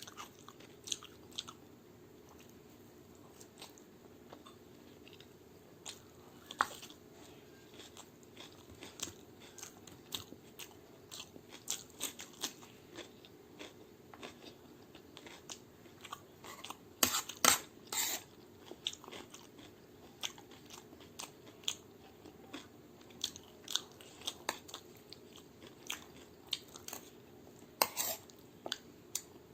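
A person chewing and crunching through a meal of chole bhature with raw onion, chilli and cucumber: a continual run of sharp, crisp crunches, loudest in a cluster a little past halfway and again near the end.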